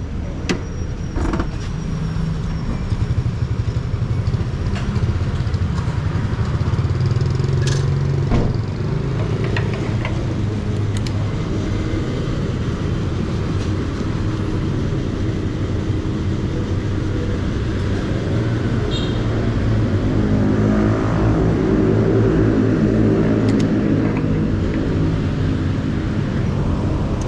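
Motor vehicle engine idling steadily, a low even hum, with a few sharp clicks along the way; the sound grows a little fuller about two-thirds of the way in.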